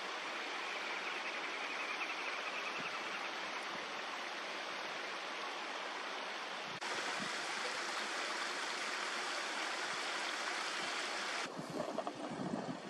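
Shallow river water streaming over a concrete low-water causeway, a steady rushing. About a second before the end it drops to a quieter flow with a few soft, irregular sounds.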